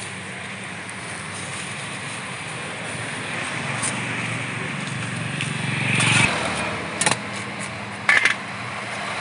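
Street traffic: a motor vehicle's engine grows louder over a few seconds and breaks off about six seconds in. Two short, sharp clatters follow.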